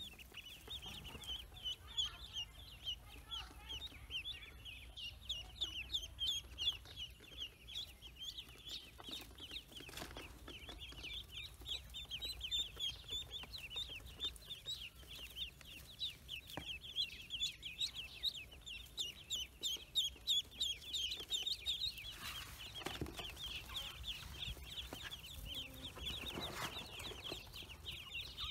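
A crowd of newly hatched ducklings peeping together in rapid, high chirps that overlap without pause. A few brief rustles from the birds being handled break in now and then.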